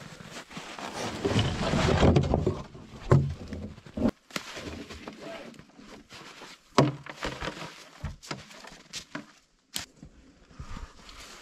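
Plastic sled loaded with sawn firewood rounds scraping over snow, then the log rounds knocking and thudding against each other and the ground as they are tipped out and handled, a series of separate knocks.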